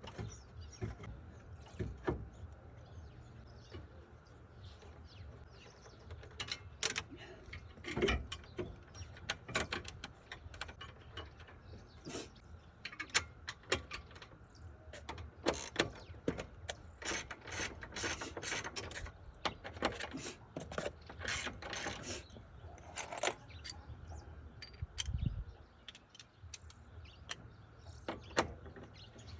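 Hand tools and car parts clicking, clacking and knocking irregularly as they are worked on, including the clicking of a ratchet.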